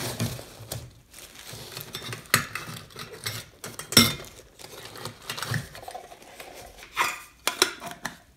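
Titanium cook mugs and a small plastic fuel bottle being handled and packed on a table: rustling of a plastic bag and mesh pouch, with several sharp clinks and knocks of the metal cookware, the loudest about four seconds in and again near seven seconds.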